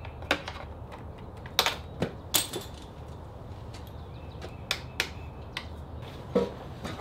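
Irregular sharp metallic clicks and knocks, about ten over several seconds, from hands and tools working mirror hardware on a motorcycle handlebar end.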